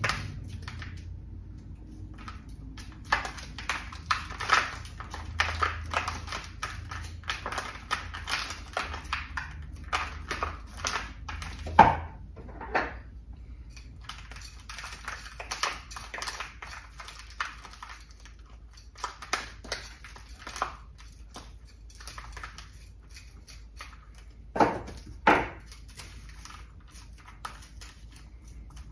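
A small metal hand tool scratching and raking through a bonsai's root ball, loosening crumbly soil from the roots. The scrapes come in quick runs with short pauses, with a few louder strokes near the middle and about three-quarters of the way through.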